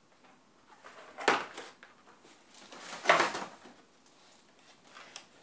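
Plastic packaging and cardboard being handled during an unboxing: two short rustles, about a second in and about three seconds in.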